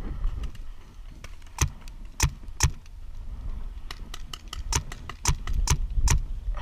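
Paintball markers firing during a game: a string of sharp, irregular pops, about eight, with several coming in quick succession near the end, over a steady low rumble of wind on the microphone.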